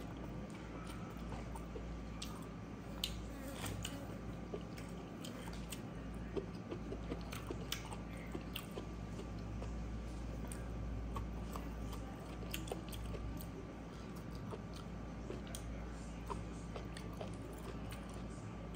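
Close-miked chewing of pork intestine and rice eaten by hand, with many short mouth clicks scattered throughout over a steady low hum.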